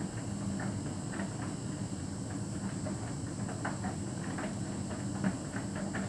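Hotpoint heat pump tumble dryer running with a steady hum, the drum turning, and light irregular ticks and taps as the laundry tumbles inside.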